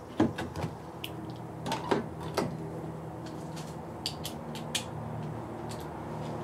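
Scattered metallic clicks and clinks of a small swivel-head hand ratchet turning out the Phillips screws of a car door armrest, some close together and some spaced out, over a steady low hum.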